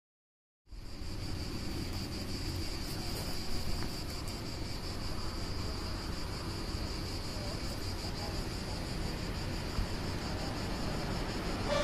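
Camera-microphone sound from a GoPro on a selfie stick on a woodland hike: a steady low rumble of wind and handling noise with a constant thin high-pitched whine over it. It starts abruptly under a second in.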